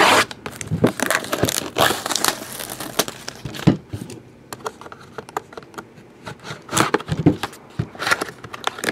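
Packaging of a sealed trading-card box being torn open: plastic wrapper crinkling and tearing in irregular rustles and crackles, with a quieter spell in the middle.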